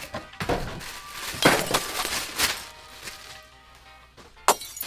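Background music with a few short clinks and rustles of a slime craft kit's contents being unpacked.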